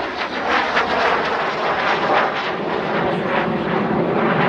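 Gloster Meteor T.7 jet flying past overhead, its twin Rolls-Royce Derwent turbojets making a loud, steady rushing noise that swells and ebbs slightly.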